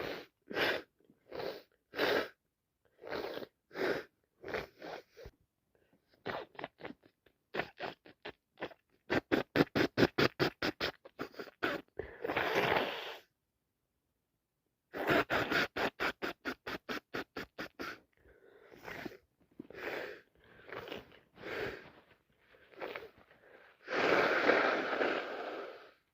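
Repeated sniffing and short, sharp breaths through a congested nose from someone with a heavy cold. The sniffs come singly at first, then in fast runs of about five a second, with a longer harsh, noisy burst near the end.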